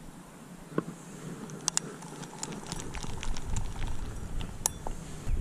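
Irregular light clicks and ticks of hands handling a fishing reel and rod close to the microphone, with wind buffeting the microphone and building toward the end.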